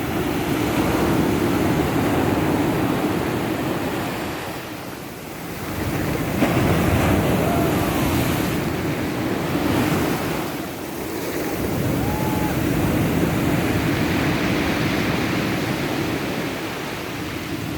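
Stormy sea: heavy surf breaking on the beach, the roar of the waves swelling and ebbing in three big surges.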